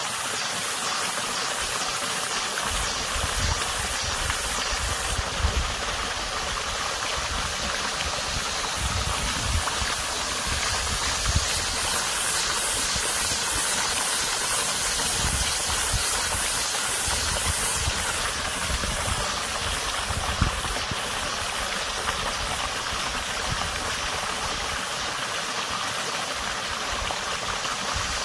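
Water running steadily over the bed of a small stream, a constant rushing hiss, with a high, finely pulsing cicada buzz above it.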